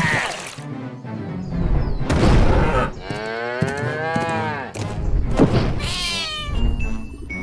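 Cartoon animal calls over background music. A long call rises and then falls in pitch about halfway through, and a shorter one follows near the end, with deep low thuds in between.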